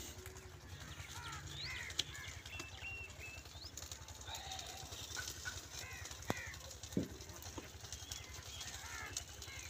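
Small birds chirping repeatedly over a low steady rumble, with a few sharp clicks and a knock about two, six and seven seconds in.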